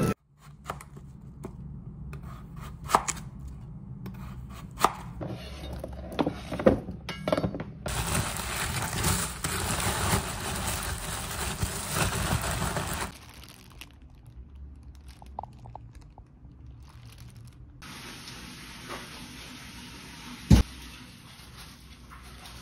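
Kitchen handling sounds: scattered knocks and clicks, then about five seconds of a black plastic bag being crumpled and rustled, and a single sharp knock near the end.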